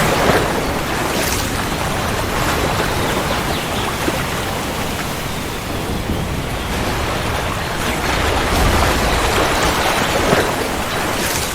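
Steady rain, a dense even hiss, with a low rumble of thunder swelling about eight seconds in.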